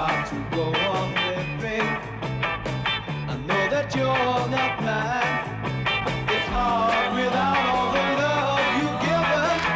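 Upbeat 1960s rock-and-roll dance song played by a band with electric guitar and drums, a bass line repeating under a steady driving beat.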